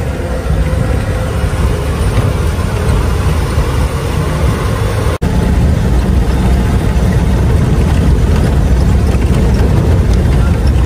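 Bus engine running and road noise inside a moving bus: a steady low rumble, with a momentary drop-out about five seconds in.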